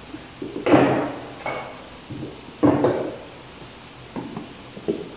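Handling noises as a roll of electrical tape and tools are taken up: about five short scrapes and knocks, the loudest just under a second in and a little before three seconds in.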